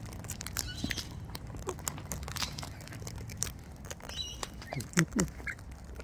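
Cockatoos and a lorikeet feeding from a seed container: a steady run of small clicks and cracks from beaks working the seed, with a few short high chirps. A brief low vocal sound about five seconds in.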